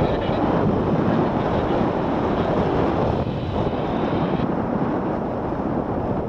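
Steady rush of wind buffeting an action camera's microphone in paraglider flight, at an airspeed around 30 km/h.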